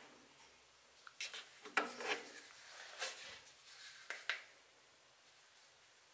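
Faint handling noises: a few soft rubs, scrapes and light taps as small objects are picked up and moved about, dying away for the last second or so.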